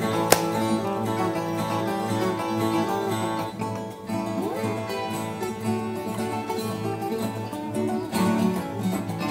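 Viola caipira, the ten-string Brazilian folk guitar, played as an instrumental introduction: a picked melody over strummed chords, with a brief dip in loudness near the middle.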